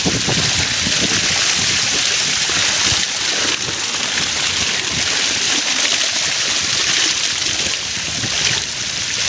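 Heavy stream of water from a solar-powered pump gushing out of an outlet pipe, splashing steadily onto people and into the shallow pool below.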